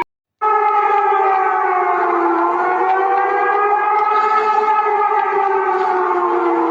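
Civil defence siren wailing as a chord of several tones at once, the pitch sagging slightly in the middle and then holding. It starts about half a second in, after a brief silent gap between recordings.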